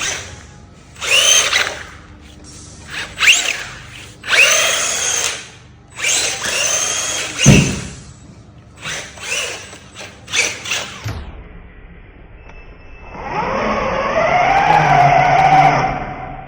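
Small electric motor whirring in short bursts, its whine rising and falling with each burst, then one longer run of about three seconds near the end.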